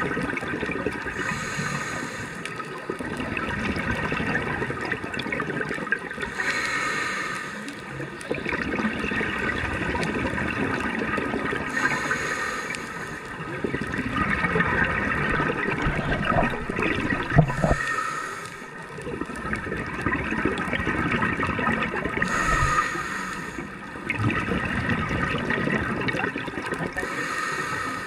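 Scuba diver breathing through a regulator underwater: a hissing inhalation about every five seconds, with gurgling exhaled bubbles between.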